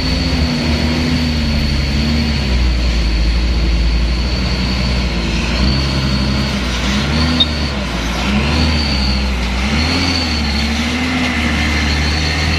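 Hino Euro 4 dump truck's diesel engine pulling at low speed over loose, rutted fill, its pitch rising and falling over and over as the throttle is worked, over a steady low rumble.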